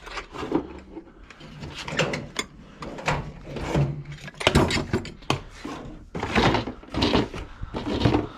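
Irregular knocks, thumps and scraping of objects being picked up, moved and set down while tidying up.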